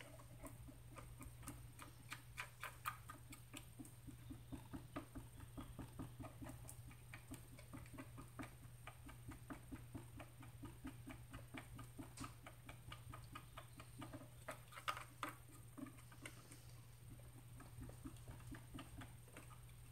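Stir stick clicking and scraping against the sides of a small plastic cup as two-part resin is mixed: faint, rapid ticks at about three a second, a few of them louder.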